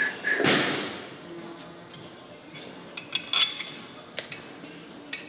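Metal parts and tools clinking and clanking as they are handled, with a short rush of noise about half a second in and a cluster of ringing clinks about three seconds in.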